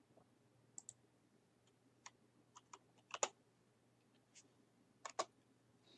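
Computer keyboard being typed on: a dozen or so faint, irregular key clicks, the loudest cluster about three seconds in.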